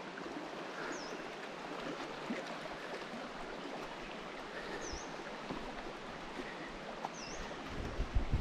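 A river flowing steadily over rocks, with a bird's short high chirp, dipping and rising, three times. A few light knocks near the end.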